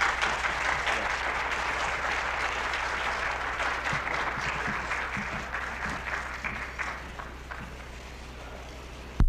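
Audience applauding, a dense patter of clapping that fades away over the last couple of seconds. A steady low hum runs underneath, and a short loud click comes just before the end.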